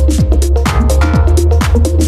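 Electronic dance music with a steady, fast drum beat and heavy bass.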